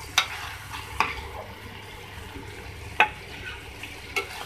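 A metal spoon scraping and knocking against a metal karahi as egg curry is scooped out of it, four sharp clinks over a low sizzle of the thick masala still cooking in the pan.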